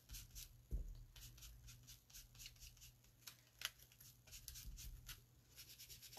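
Faint soft scratchy strokes of an ink blending tool dabbed and rubbed over a paper stencil on a card, coming in irregular little runs, with one dull bump on the desk about a second in.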